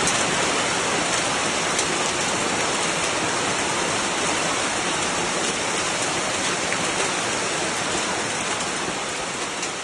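Heavy downpour, a dense steady hiss of precipitation striking surfaces, with scattered sharper ticks; it eases slightly near the end.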